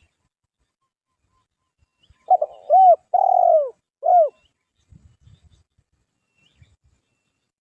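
Spotted dove (tekukur) giving one cooing phrase about two seconds in: a short note, then a run of arched coos with one longer coo in the middle, over about two seconds. A few faint low knocks follow.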